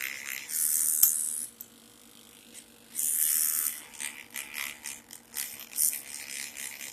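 Two short hisses of a spray, each lasting about a second, the second about three seconds in, followed by small clicks and rattles of metal sewing machine parts being handled.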